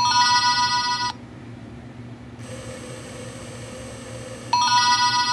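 Automatic soap dispenser's small electric pump motor running twice, each time for about a second with a steady whine that starts and stops abruptly. The pump works now that the battery contacts are making proper contact.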